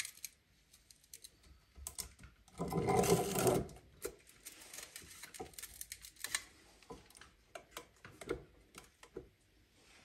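Hand assembly of a portable generator's alternator: scattered clicks and knocks of metal parts, with a louder scraping rattle lasting about a second around three seconds in, as the wound stator is handled and fitted over the rotor.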